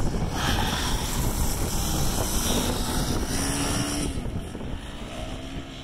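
Dual-sport motorcycles pulling away on a gravel road, their single-cylinder-style engine note rising as they accelerate about two seconds in. The sound then fades as they ride off, with wind rumbling on the microphone throughout.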